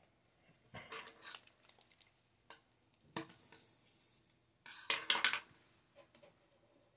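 Short clatters and rattles of small hard objects being handled, in bursts about a second in, around three seconds and around five seconds, the last burst the loudest.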